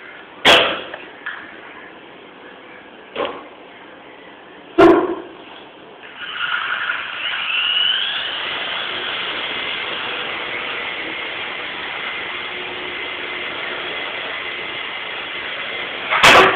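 Small toy RC helicopter's electric motor and rotor spinning up about six seconds in, rising in pitch and then whirring steadily with a high whine. A few sharp knocks come before it, and a loud knock near the end.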